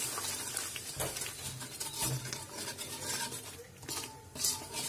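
Metal wire skimmer stirring a thick, watery spice paste in a metal pan, with irregular scrapes and clicks of metal against the pan.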